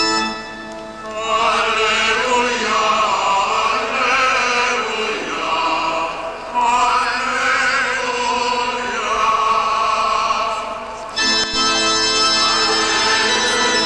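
Sacred music at an open-air Mass: singing with vibrato over organ. About eleven seconds in, the sound breaks off abruptly and a steady held organ chord takes over.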